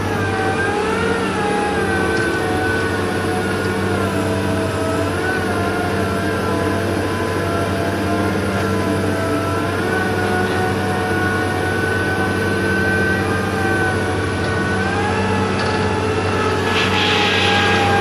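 Sunward SWDM28 rotary drilling rig's diesel engine running steadily under load, with a whine that slowly rises and falls in pitch. A short hiss comes near the end.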